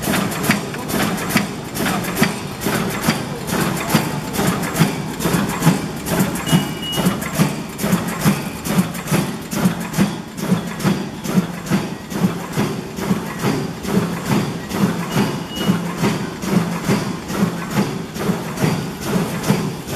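Shopping bag making machine running, with a regular clacking from its sealing and cutting strokes, somewhat less than two a second, over a steady machine hum. A short high beep sounds twice.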